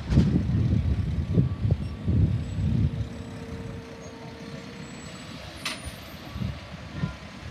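Diesel engine of a Mack LR garbage truck running as it drives past, loud for the first three seconds and then falling away, with a short air hiss at the start and another near six seconds.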